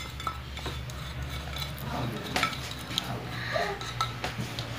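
A knife scraping and clinking against an enamel plate and a plastic bowl while blended chili and shallot paste is scraped out, with a few light scattered clicks.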